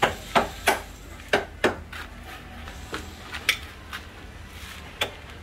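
A hammer striking a chisel: sharp taps about three a second at the start, then a few scattered single strikes.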